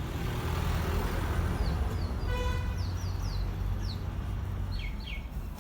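Combine harvester running with a steady low rumble, its noise swelling over the first two seconds. Birds chirp throughout, and a short horn-like toot sounds about two and a half seconds in.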